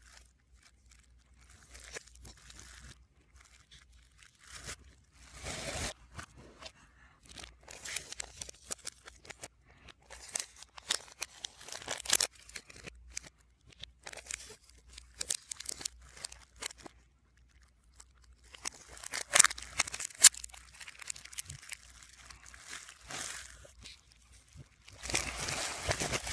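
Packaging of a music album being handled, with crinkling plastic and paper, rustling and sharp clicks in irregular spurts, played backwards.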